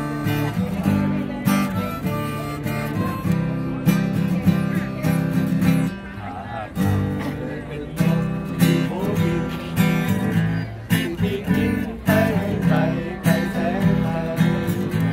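Acoustic guitar strumming chords, with a harmonica playing along at first.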